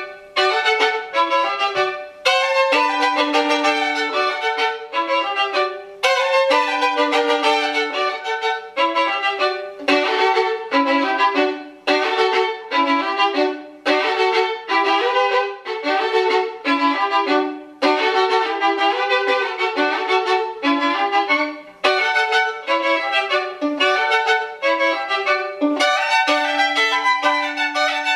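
A violin playing a slow lyrical piece in short phrases of about two seconds each, often with two or more notes sounding together.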